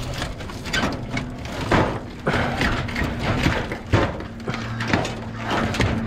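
Sheet-metal panels of a heat pump cabinet clanking and scraping as they are handled and pulled apart, with irregular sharp knocks throughout.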